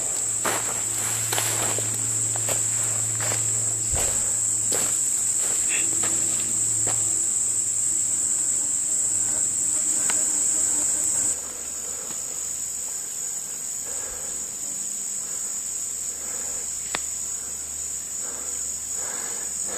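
A steady, high-pitched drone of a summer insect chorus, which drops in level a little past halfway. Footsteps crunch on dry leaves and gravel in the first few seconds.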